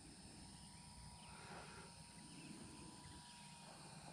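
Near silence: faint outdoor background hum and hiss, with a few faint chirps.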